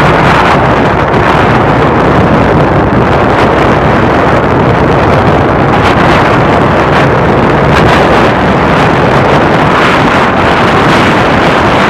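AquaLink II passenger boat underway, its engines running steadily, with wind buffeting the microphone.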